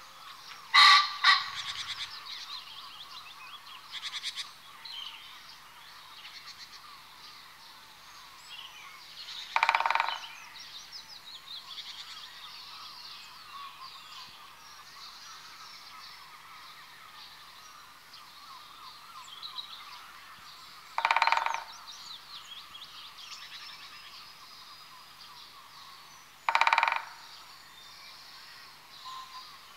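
Great spotted woodpecker giving short, sharp 'kik' calls: a quick few about a second in, then three more single calls spread widely apart. Other small birds sing faintly throughout.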